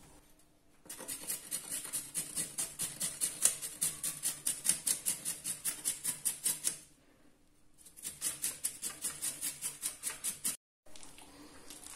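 Carrot being grated on a flat stainless-steel grater: fast, even rasping strokes, about five a second. They pause briefly partway through, resume, then cut off suddenly near the end.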